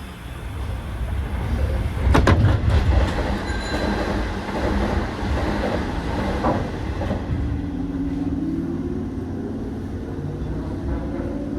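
Hanshin 5001-series electric train pulling away, heard from the cab: a run of sharp knocks of wheels over rail joints early on, then the traction motors' whine rising steadily in pitch as the train accelerates over a steady rumble.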